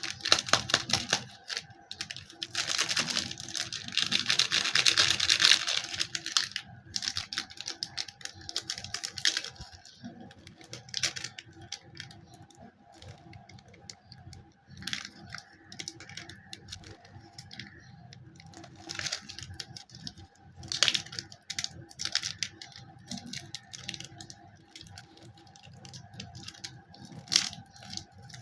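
Candy packaging being handled and opened: plastic wrappers crinkling and tearing, with crackly clicks throughout. A louder, denser stretch of crinkling comes about three to six seconds in.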